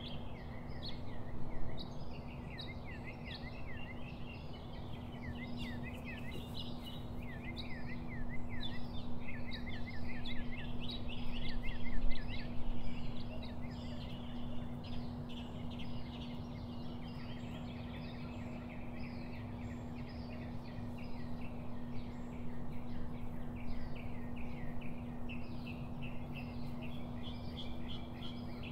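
Small birds chirping in quick, repeated twittering notes, over a steady low hum and background noise.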